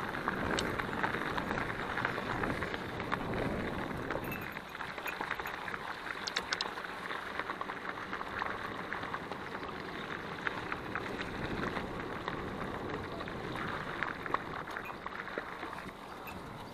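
Mountain bike rolling over a rough trail: steady tyre crunch with many small clicks and rattles from the bike. It is a little louder for the first few seconds and eases off after about four and a half seconds.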